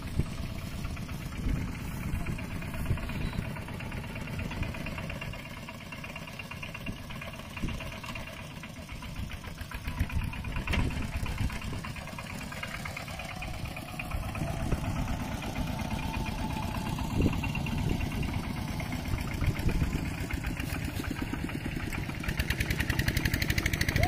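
Single-cylinder diesel engine of a two-wheel walking tractor running with a fast, even firing beat, growing louder near the end.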